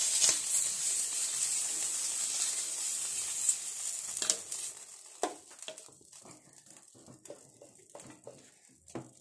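Oil-and-water mixture sizzling on a hot dosa tawa as it is wiped across the pan with a cloth, the hiss dying away over the first few seconds as the water boils off; then soft clicks and taps of the spatula and pan. This wiping readies the tawa before the dosa batter goes on.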